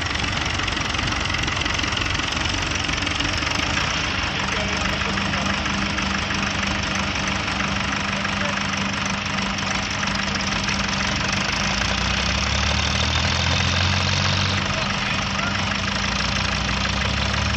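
Ferguson TEF20 tractor's four-cylinder diesel engine running steadily, with its note deepening and strengthening for a few seconds past the middle.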